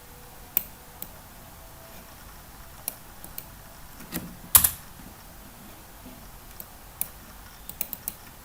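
Computer keyboard being typed on in short, irregular keystrokes, with a louder clack or two a little past halfway.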